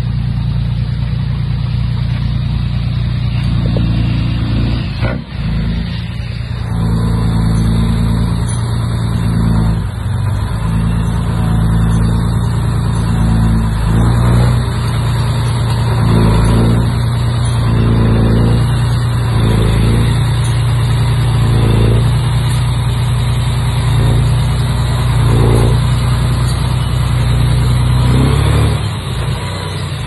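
Diesel engine of a Komatsu D31P crawler bulldozer running hard and steadily, with a run of brief surges about every second and a half in the middle stretch.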